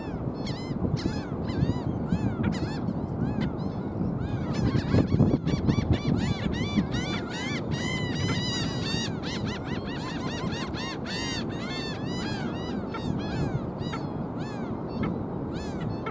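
A flock of black skimmers calling: many short, arched calls overlapping at several a second, busiest around the middle, over a steady low background noise.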